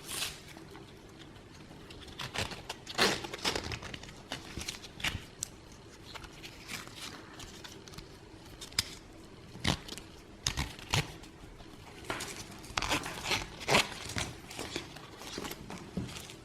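Intermittent crinkling and rustling with small clicks and taps, in scattered clusters, as a wristwatch and its packaging are handled.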